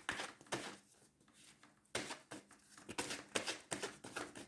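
A tarot deck being shuffled by hand: several short spells of rustling and flicking card sounds with brief pauses between them, as the reader shuffles to draw clarifying cards.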